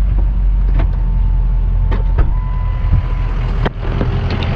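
Truck engine running, a steady low rumble with a few sharp clicks; the rumble drops away about three and a half seconds in.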